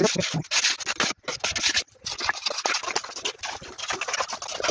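Mason's trowel scraping and spreading cement mortar over brickwork: a run of rough, gritty scrapes and strokes.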